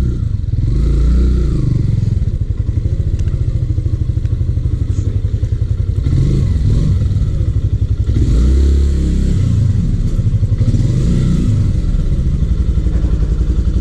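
Yamaha XTZ150's single-cylinder four-stroke engine running under way, a low, pulsing note that rises and falls with the throttle, swelling about a second in and again past the middle.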